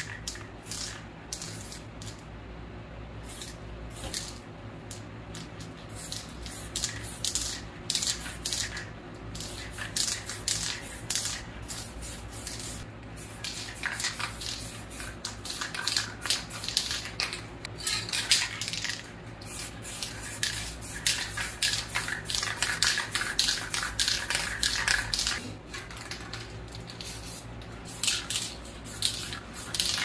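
Aerosol spray paint cans hissing in many irregular blasts, some short puffs and some held for a second or more.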